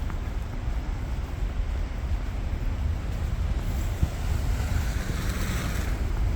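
Steady low rumble of wind buffeting the microphone, with a rushing hiss that swells from about four seconds in and fades away near the end.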